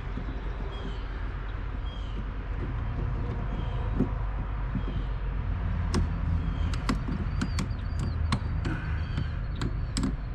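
Scattered light clicks and taps of hands and tools working on plastic and metal parts under a car's hood, growing more frequent about halfway through, over a steady low rumble. A bird chirps repeatedly in the background.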